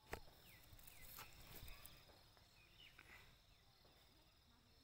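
Near silence, with a few faint snaps and rustles in the first couple of seconds as pea vines are handled and pods picked by hand, and a few short, faint falling chirps.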